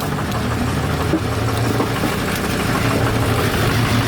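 Ford 6.0 Powerstroke V8 turbo-diesel idling steadily, running on a newly fitted turbocharger.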